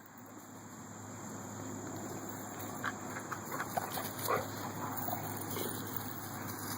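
A dog chewing and gnawing on something hard, with a few short, high squeaks in the middle.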